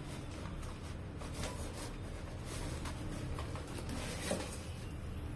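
Faint rustling and light knocks of a cardboard box being handled and tipped, over a low steady background hum.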